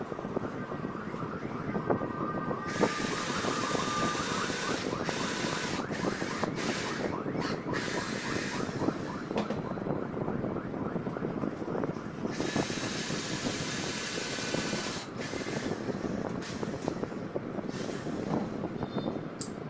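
Cordless drill-driver motor whining in two runs, the first starting about a second in and the second about twelve seconds in, driving screws into particleboard. Under it runs a steady mechanical rattle and hiss.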